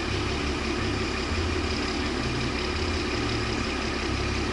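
Vehicle engine idling steadily under a constant hiss.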